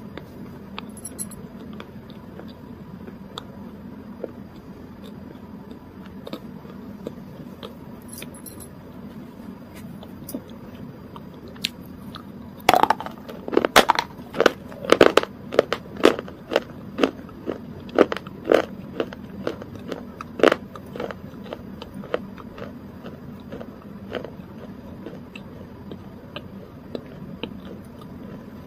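A person chewing close to the microphone: soft mouth clicks, with a run of loud, sharp crunches, about two a second, that starts about halfway through and lasts some eight seconds.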